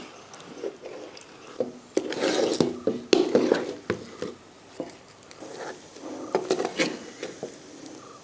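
A metal spatula stirring and scraping thick rice batter around an aluminium pan, in irregular scrapes and knocks against the metal, as the batter cooks into a stiff dough. The busiest stirring is about two to three and a half seconds in.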